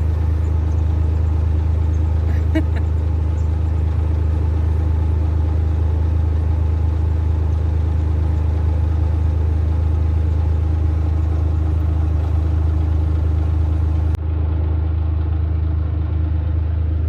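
A vehicle's engine idling, a steady low hum that runs unbroken.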